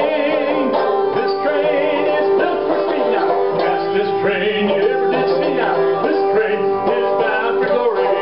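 Banjo being picked, playing a bluegrass-style tune.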